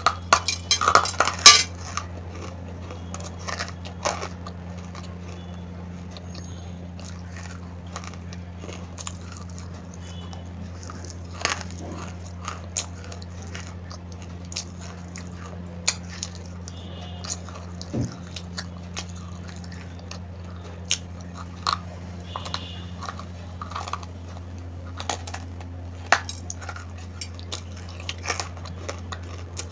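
Dry chunks of clay being bitten and chewed: a loud burst of crisp crunches in the first two seconds, then scattered crunches and clicks. A steady low hum runs underneath.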